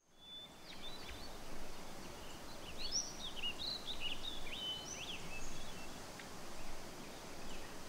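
Outdoor ambience: small birds chirping in short, quick rising and falling notes, busiest in the middle, over a steady low background noise.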